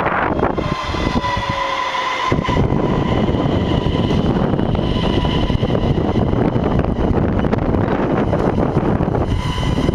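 Bombardier Regina electric multiple unit running past close by: a steady rush and rumble of wheels on rail, with a high electric whine held over it. The low rumble swells about two and a half seconds in as the cars come alongside.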